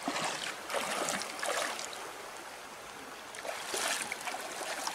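Shallow, rocky creek flowing, with a steady rush of water over stones. Near the end, feet splash through the water as someone wades.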